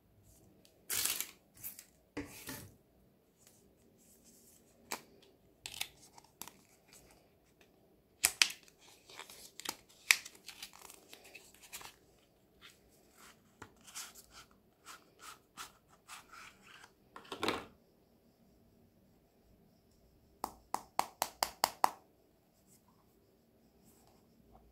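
Handling noise from SSD retail packaging: a cardboard sleeve rubbed, scraped and slid off a metal case, in scattered scrapes and taps with a longer stretch of scraping around the middle. A quick run of about eight sharp clicks comes a little before the end.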